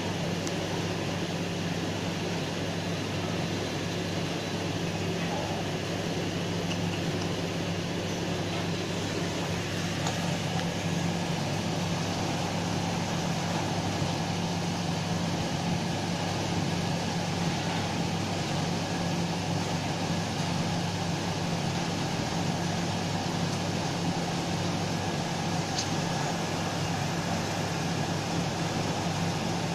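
A steady low machine hum with an even hiss over it, unchanging throughout.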